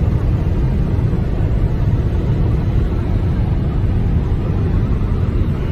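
Loud, steady rumble of road and wind noise picked up inside a moving car. It starts abruptly at the very beginning.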